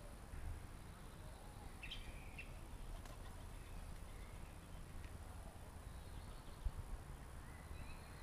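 Faint outdoor ambience: a few short bird chirps over a low steady rumble, with a single sharp knock about two-thirds of the way through.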